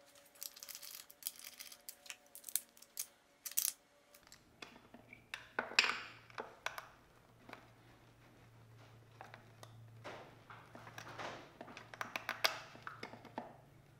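Ratchet and socket clicking, with metal tools clinking and scraping, as spark plugs are worked back into the cylinder head of an outboard motor. Faint background music plays for the first few seconds, and a low steady hum starts about four seconds in.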